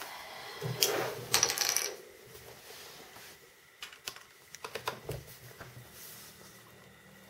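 Small clicks and knocks from a USB stick and a closed MacBook Pro being handled on a wooden table. There is a quick cluster of clicks about a second in, then a few lighter clicks near the middle.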